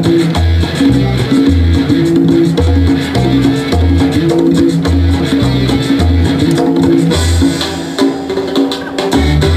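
Cumbia dance music played loud, with a pulsing bass line and hand percussion. The bass drops out for about a second and a half near the end, then comes back.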